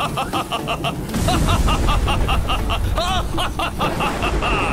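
Animated lightning-storm spell effect: a deep thunder rumble swells about a second in, under a rapid run of short shrill cries from a flock of wyverns being struck, about eight a second.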